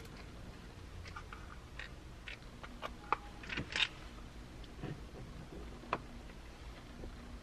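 Scattered small clicks and rustles of a plastic sunglass holder being handled and fitted against the roof grab-handle mounting clips, then held in place while a screwdriver starts the first screw. The sharpest clicks come a little past the middle and once more near the end.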